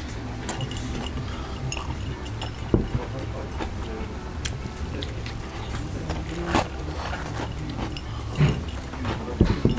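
Chewing and biting through crunchy fried breaded shrimp, with scattered crunches and sharper clicks over a steady low hum, and a drink from a glass near the end.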